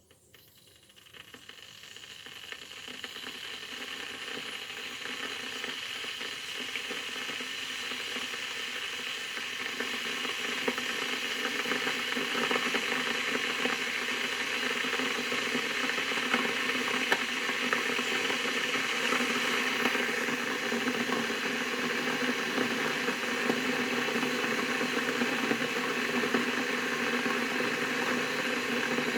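Kettle heating toward the boil: a hiss that swells from near silence over the first few seconds and then runs steadily, with many small crackling ticks.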